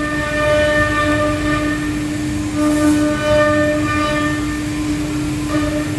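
Stone CNC router's spindle cutting into stone: a loud, steady whine, with rumbling cutting noise under it and higher tones that come and go as the bit works the surface.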